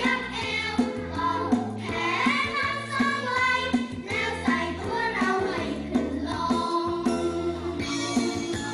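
Music: a group of voices singing a song over a steady instrumental beat.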